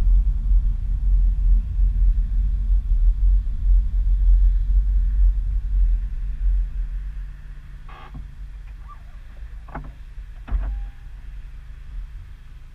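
Wind buffeting and rumbling on the microphone of a car-roof-mounted GoPro while the car moves slowly. The rumble dies down about seven seconds in as the car comes to a stop, leaving a low steady hum and a few faint clicks.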